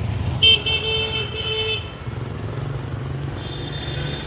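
A vehicle horn honks for about a second and a half, and another horn starts near the end, over a steady low hum of street traffic.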